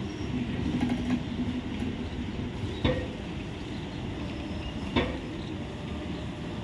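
Indian Railways passenger coaches rolling slowly past, a steady low rumble with two sharp knocks about two seconds apart.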